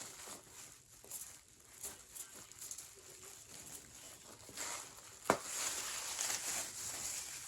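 Bleach powder and developer being stirred into a thick paste in a mixing bowl, with scattered small scrapes and taps, a sharp click a little past five seconds in, then a stretch of steadier scraping.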